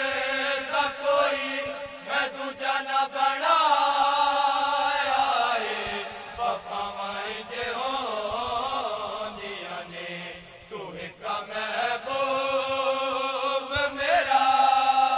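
Group of men chanting a devotional kalaam together in long held notes, the pitch gliding in the middle; the voices dip briefly about eleven seconds in.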